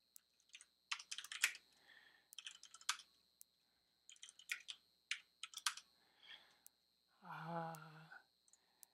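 Typing on a computer keyboard: two short runs of keystrokes as terminal commands are entered, then a brief hum from a voice near the end.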